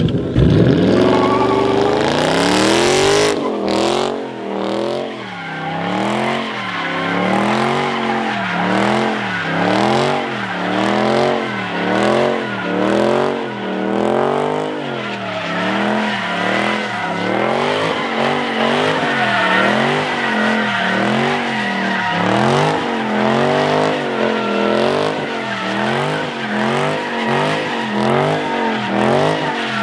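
Dodge Charger doing donuts: the engine revs rise and fall about once a second as the car circles, over a steady tire squeal. A loud burst of revving opens it at the launch.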